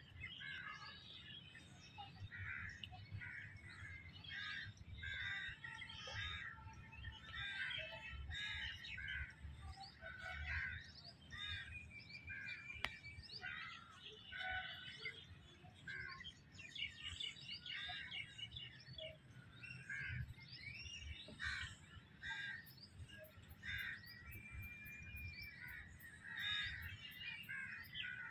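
Many birds chirping and calling without a break, several voices overlapping, with a low uneven rumble underneath.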